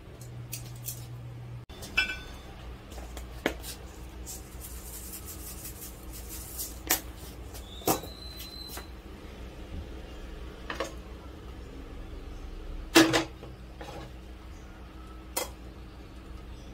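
Kitchenware being handled: sharp clacks and knocks of metal tongs and ceramic plates every few seconds, the loudest about thirteen seconds in, over a steady low hum.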